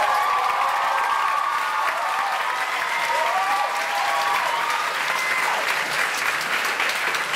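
Audience applauding and cheering, with high whoops wavering above the clapping.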